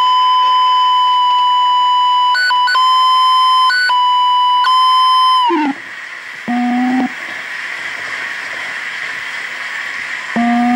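Steady electronic tone held at one high pitch, jumping briefly higher three times, then cutting off about five and a half seconds in. A short lower tone follows, then a stretch of hiss, and the lower tone comes back near the end.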